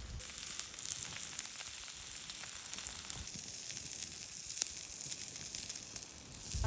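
Food sizzling in a hot pan: a steady hiss with many fine crackles.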